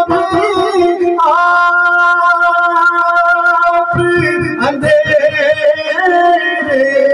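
A man singing a naat, an Urdu devotional song, into a microphone: he holds one long level note for about three seconds, then moves on through ornamented, gliding phrases.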